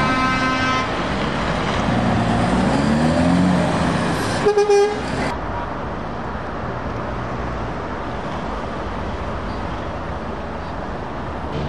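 Lorries pulling away with their diesel engines running and one revving up. A truck horn sounds in the first second, then three short, loud horn blasts come about four and a half seconds in.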